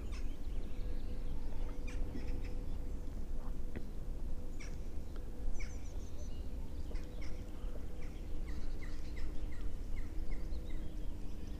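Birds chirping and calling from the riverbank, with a run of short, evenly repeated notes about two a second in the second half, over a low rumble of wind on the microphone and a faint steady hum.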